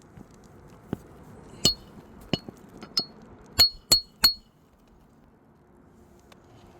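Hammer striking a steel roof snake to drive a roofing nail under a lifted asphalt shingle: about seven sharp, ringing metal clinks, the last three in quick succession.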